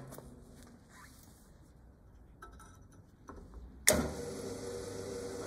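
A few small clicks and knocks of metal being handled on a drill press table, then about four seconds in a pillar drill press starts with a sudden loud jolt, and its motor runs on with a steady hum.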